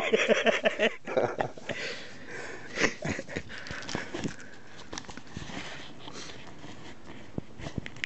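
A man laughing in short quick bursts for about the first second, then rustling and a few scattered knocks and clicks as things are handled.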